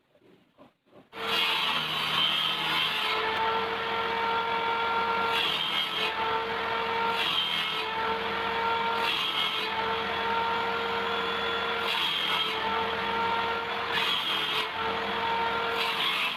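An electric power tool starts up after a few light clicks and works wood, its motor giving a steady whine over a rough cutting noise that surges every second or two as it bites into the wood.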